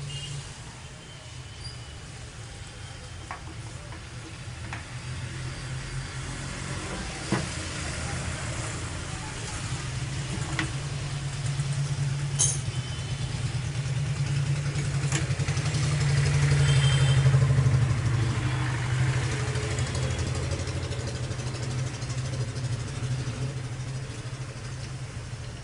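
A steady low motor hum that swells louder past the middle and eases again, with a few sharp metallic clicks from hand tools and fittings on the bangle-making machine, one louder click about seven seconds in.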